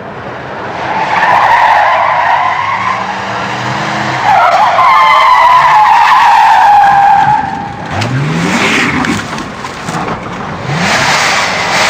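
Vintage sound-effect car tyre skids: a long wavering screech of tyres sliding, loudest from about four to seven seconds in, then a couple of short low rising whines and a further skid near the end.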